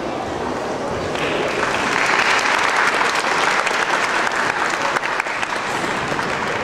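Audience applauding, the clapping swelling about a second in, strongest in the middle and easing off near the end.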